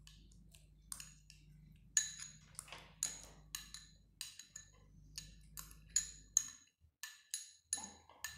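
A spoon tapping and scraping against a small cut-glass bowl as chopped tomato is knocked out of it: a steady run of short, ringing glass clinks, about three a second.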